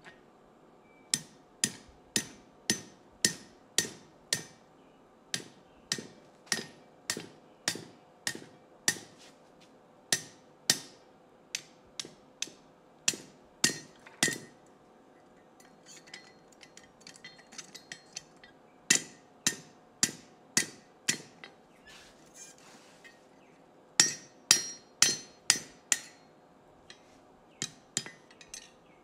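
Hand hammer striking red-hot steel on an anvil, about two ringing blows a second in runs, with a quieter lull in the middle, as the stem of a leaf hook is bent around a pin jig in the hardy hole.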